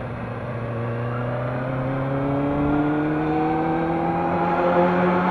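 Kawasaki ZX-6R inline-four engine accelerating under steady throttle, its pitch rising gradually and getting a little louder.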